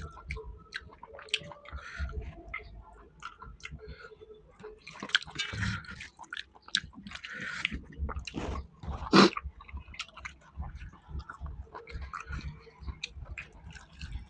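A person eating rice with tomato rasam and fried chicken: wet, smacking chewing with many small clicks and a busier stretch midway, and one louder sharp sound about nine seconds in.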